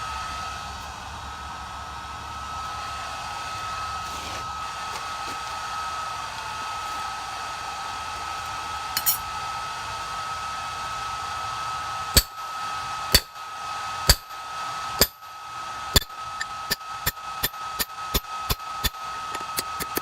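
Forge blower running steadily, then a hammer striking hot steel on an anvil with a ringing clang: first about once a second, then faster, around three blows a second, in the last few seconds.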